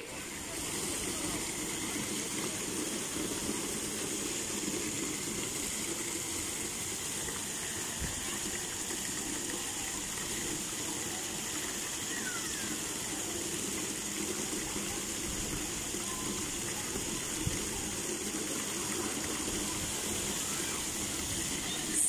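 Water gushing steadily from the fountains of a splash-pool water slide and splashing into the shallow pool.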